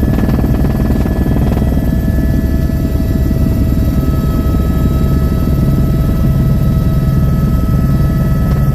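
Helicopter running steadily in flight: a dense, fast low beating with several steady whining tones above it.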